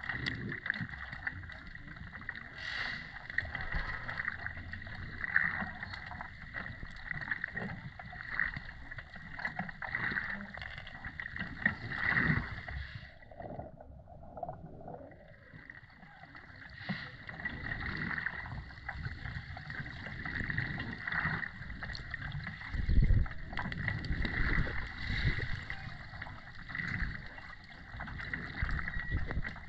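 Water noise recorded underwater: a steady rushing haze with many small crackles and clicks, and low thumps, the loudest about two-thirds of the way through. It fades briefly near the middle.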